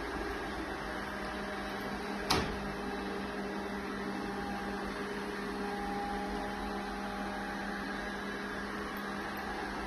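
Robot vacuum running: a steady motor hum with a few held tones, and one sharp click a little over two seconds in.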